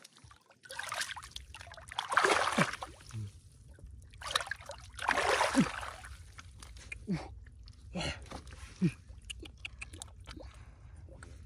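Water splashing and sloshing as hands grope through shallow field water, in two longer bouts about two and five seconds in, then a few short splashes.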